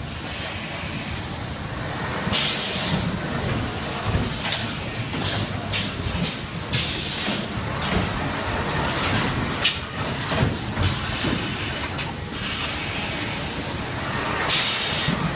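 Automatic high-frequency PVC welding machine running: a steady mechanical hum with scattered clicks and knocks, and two short hisses, about two seconds in and near the end, typical of the machine's pneumatic cylinders venting air.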